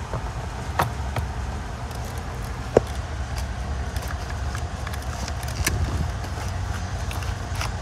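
Tools and plastic parts being handled in a plastic tool case: scattered clicks and knocks, one sharper knock a little under three seconds in, over a steady low rumble.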